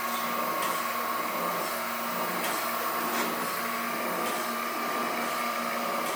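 Chevalier FSG-1020AD surface grinder running its automatic cycle, its wheel spindle and hydraulic table traverse running with a steady whine and faint, irregular ticks.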